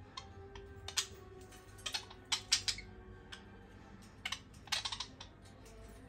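Two budgerigars squabbling: quick clusters of sharp clicks and short harsh chirps, about a second in, around two and a half seconds, and again near five seconds.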